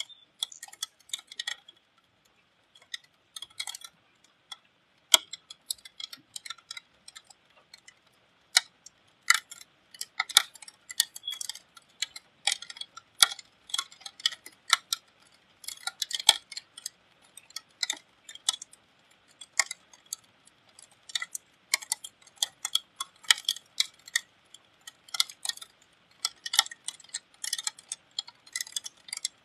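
Raindrops and drips tapping on a hard surface: sharp, irregular ticks at uneven intervals, often several a second.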